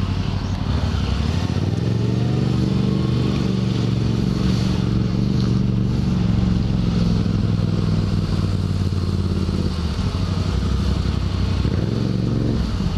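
Motorcycle engine running at low speed through city traffic, its note rising a little about two seconds in and then holding steady.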